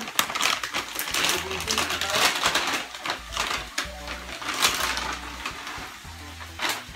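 A plastic-foil pouch of bacon crumbles crinkling and rustling as it is handled and shaken out over a frying pan, in many short crackles.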